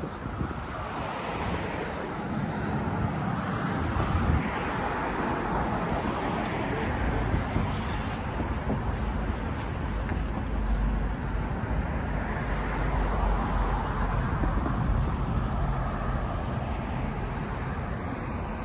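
Downtown street traffic noise: a steady wash of passing cars, with a deeper low rumble swelling about halfway through.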